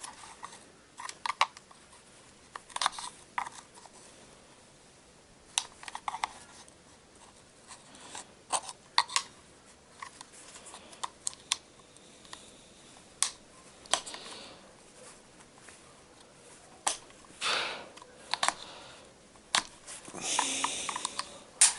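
Irregular sharp clicks, taps and short scrapes of metal and plastic as the retaining clips are worked off a GAZelle heater fan motor.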